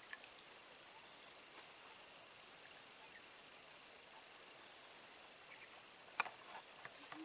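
Steady high-pitched insect chorus buzzing without a break, with a fine pulsing texture.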